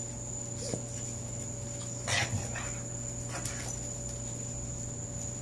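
Two dogs play-fighting: a short whimper under a second in and a louder, brief noisy burst of dog sound about two seconds in, with a smaller one a second later, over a steady high-pitched hum.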